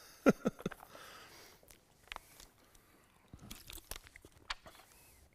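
Faint rustling and light clicks of paper notes being handled and a page turned, picked up by a headset microphone, with a brief laugh just after the start.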